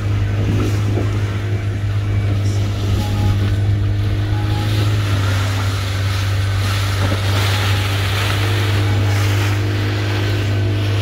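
A fishing boat's motor running steadily with a deep, even hum, along with the wash of water and wind as the boat moves over the sea.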